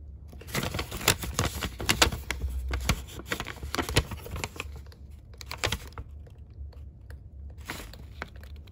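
Paper rustling and crinkling as the kit's instruction booklet is handled and its pages turned. A dense run of sharp crackles and clicks lasts for most of the first six seconds, and another short rustle comes near the end.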